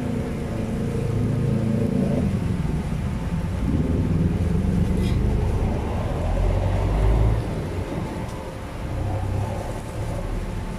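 Motor vehicle engines running close by, a low rumble whose pitch shifts as they pass, loudest about seven seconds in.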